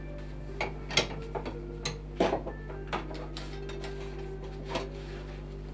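Irregular clicks and knocks of metal hand tools being picked up and set down on a wooden workbench, over a steady low hum.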